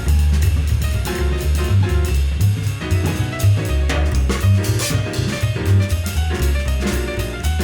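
Jazz piano trio playing: acoustic piano, upright bass and drum kit with cymbals, the bass line strong and the drums busy.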